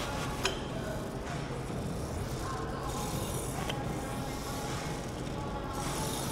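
Cable machine in use during a set of tricep pushdowns: the cable running over its pulleys, with a couple of light clicks from the weight stack over a steady low hum.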